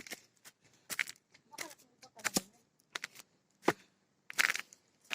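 Footsteps crunching on a dry mountain trail, roughly one step every two-thirds of a second.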